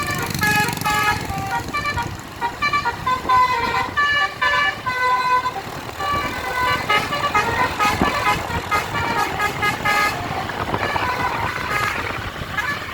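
Bus basuri horn, a multi-tone telolet air horn, playing a melody of short, clear notes that step quickly from pitch to pitch.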